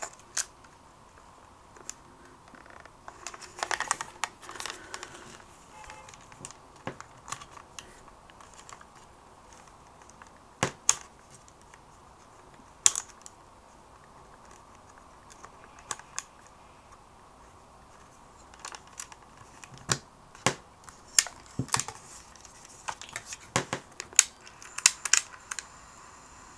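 Irregular small plastic and metal clicks and taps from handling a Sony Walkman WM-EX610 cassette player's battery compartment, its battery contact being worked at because it is not making a good connection. A quicker run of clicks comes near the end.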